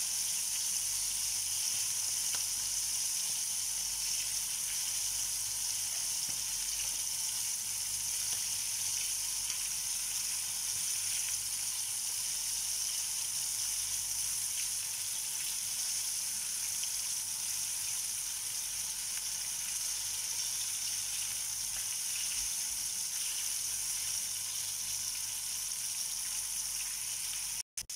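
Marinated chicken wings shallow-frying in oil in a pan, a steady sizzle as they cook toward golden brown. The sound cuts out for a moment near the end.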